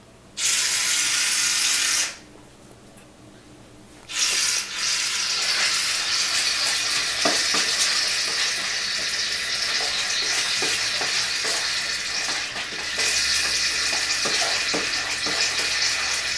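Aerosol can of shaving cream hissing and sputtering as foam is sprayed out: a short burst of about a second and a half, a pause, then a long continuous spray from about four seconds in.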